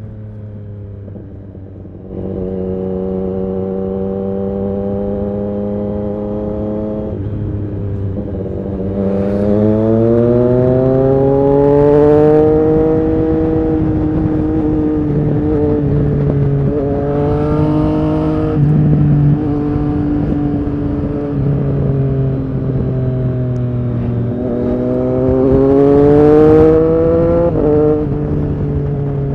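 Triumph Street Triple RS 765's inline three-cylinder engine through an SC-Project S1 exhaust, pulling under throttle. It gets louder about two seconds in, rises steadily in pitch as the bike accelerates, then rises again near the end before a sudden dip in pitch.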